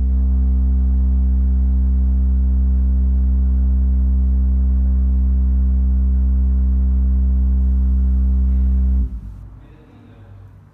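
A steady, low electronic tone with a stack of overtones, held level for about nine seconds and then cutting off. It drives the surface of a sound-art installation, which ripples into a fine cell-like pattern while the tone sounds.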